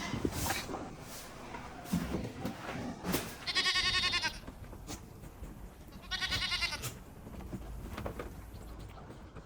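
A goat bleating twice, about three seconds apart, each a wavering, quavering call of about a second.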